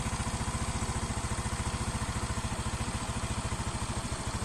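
Yamaha Mio i 125 scooter's 125 cc single-cylinder fuel-injected engine idling steadily, with an even, rapid putter.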